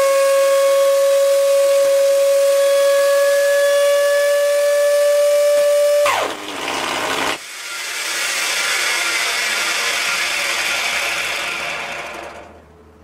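Electric hover mower motor running with a steady high whine, which drops sharply in pitch and breaks off about six seconds in. A loud rushing hiss follows and fades away near the end.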